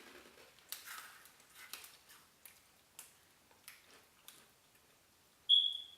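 Crunching and chewing of a small crispy snack in the mouth: a handful of irregular crisp crunches. A short, loud, high-pitched squeak about five and a half seconds in.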